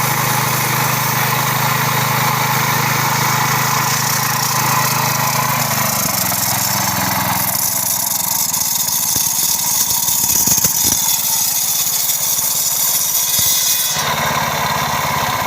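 Engine-driven core drill running while cutting a core in concrete or asphalt: a steady engine note with a high hissing, grinding noise over it. About six seconds in the low engine hum drops away and the high cutting noise grows, with a few knocks near the middle.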